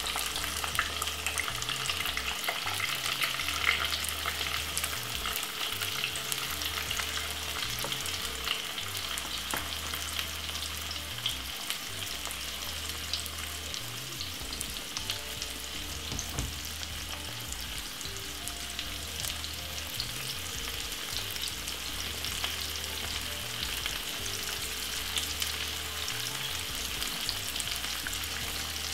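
Chopped tomato, white onion and spring onion frying in hot vegetable oil in a nonstick pan: a steady sizzle with fine crackling, a little louder in the first few seconds after the vegetables go in, then settling to an even level.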